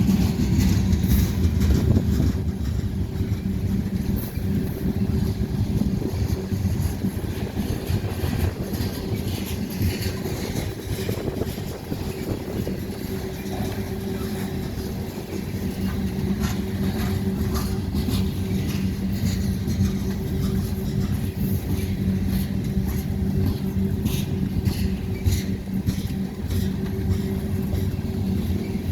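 A heavy vehicle running steadily: a low rumble with a constant held hum, with faint scattered clicks over it.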